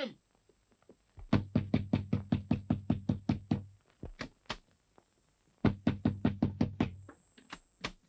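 Fists pounding hard and fast on a wooden door: two long runs of about six blows a second, with a pair of single blows between them.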